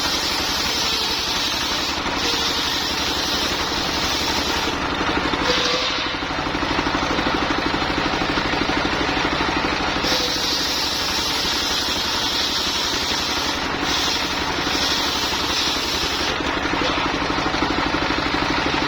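Engine-driven mobile circular sawmill running steadily while sawing lamtoro wood, with a fast even knocking from its motor. A higher hiss swells and drops every few seconds.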